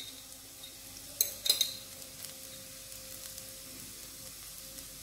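Chopped onion and spices frying in oil in a non-stick wok, a quiet steady sizzle. A couple of light clicks about a second and a half in.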